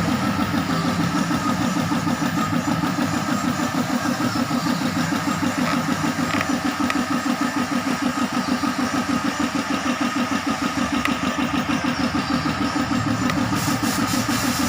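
Mitsubishi 4M40 2.8-litre four-cylinder diesel engine idling with an even pulsing beat, likely running after its rebuild. A hiss joins in near the end.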